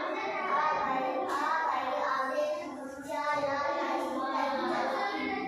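A child's voice singing in a continuous sing-song line, with a brief pause about three seconds in.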